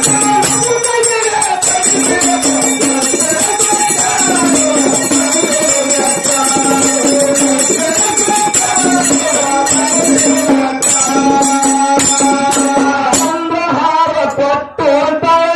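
Male voices singing a dollina pada, a North Karnataka devotional folk song, in long held lines, over the steady clink of small hand cymbals.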